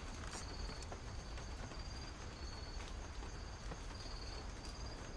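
Quiet ambience of insects chirping, short high chirps coming and going over a steady low rumble, with a few faint clicks.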